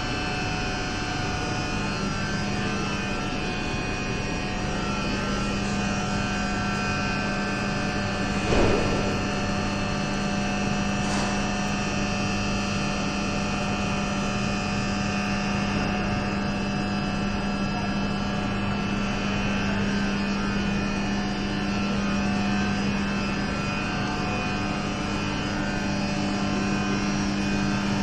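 Electric double-deck commuter train standing at an underground platform, its onboard equipment humming steadily with several held tones. There is a single brief thump about eight and a half seconds in, and near the end a whine begins to rise as the train starts to move.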